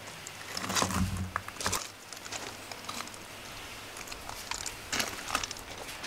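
Handling noise from a hand-held camera being moved and repositioned: scuffs and knocks, loudest in the first two seconds, then fainter clicks and rustles.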